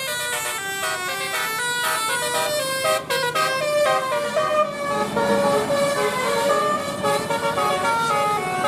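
Telolet Basuri musical bus horn playing a fast melody, its notes stepping quickly up and down. From about halfway, rumbling road noise grows beneath it.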